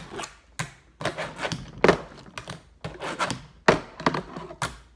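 Fingerboard (finger-sized skateboard) clacking as it is flicked and landed on a cardboard box and table during kickflip manual attempts: a run of sharp, irregular clacks and taps.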